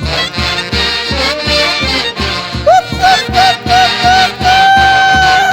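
Band music in the Peruvian santiago style: a steady drum beat of about three to four strokes a second under dense instrumental accompaniment. A little before halfway a lead melody plays several short repeated notes and then holds one long note.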